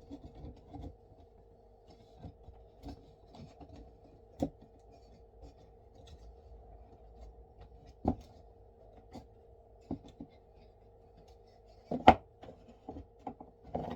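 Light handling of a wooden beehive frame and its wax foundation: scattered knocks, clicks and rubbing, with the loudest knock about twelve seconds in.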